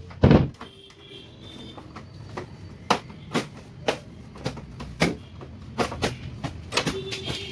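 A loud knock, then a run of sharp plastic clicks and snaps, about two a second, as the front grille of a Blue Star split AC indoor unit is worked off its clips by hand.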